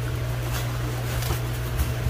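A steady low hum, with a few faint scrapes and clicks as the styrofoam lid of a fish shipping box is worked loose.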